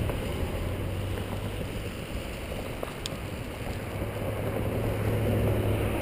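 Wind and road rumble on a helmet-mounted camera while riding a road bicycle, with a steady low hum through most of it and a single click about three seconds in.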